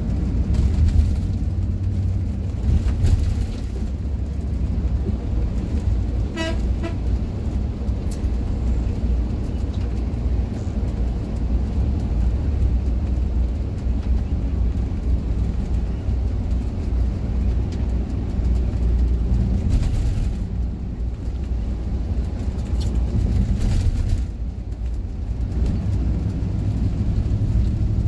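Steady low rumble of an intercity bus heard from inside the cabin while it drives along a highway. About six seconds in, a vehicle horn gives one brief toot.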